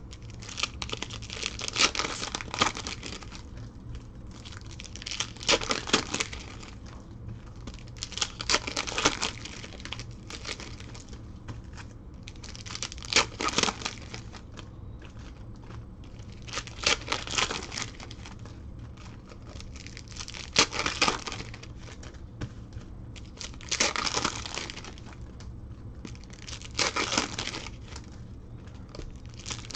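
Foil trading-card packs being torn open one after another: the wrappers crinkle and tear in about eight bursts, one every three to four seconds.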